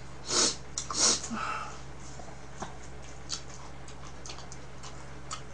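Two sharp sniffs through the nose, less than a second apart, followed by scattered soft clicks of chopsticks against dishes and containers.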